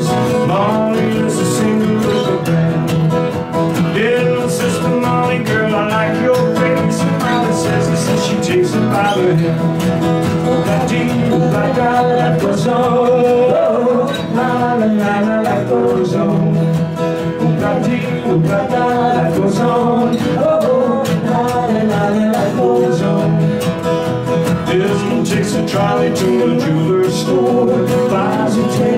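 Two acoustic guitars strummed steadily in a folk-pop song, with male voices singing over them.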